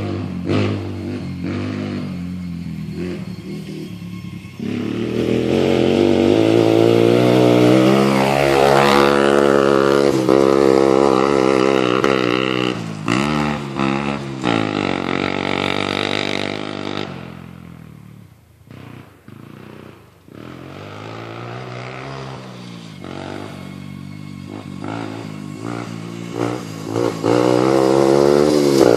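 Honda TRX 90 youth ATV's small four-stroke single-cylinder engine running through a Big Gun Evo Mini full exhaust while being ridden. It picks up revs about five seconds in and holds them, drops back almost to idle a little past halfway, then builds revs again toward the end.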